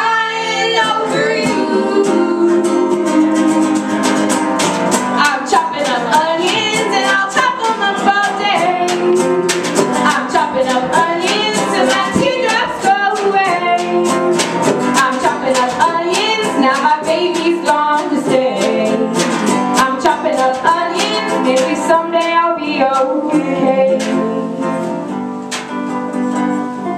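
Live acoustic band playing: strummed guitar and other plucked strings with a singing voice over them, getting quieter over the last few seconds.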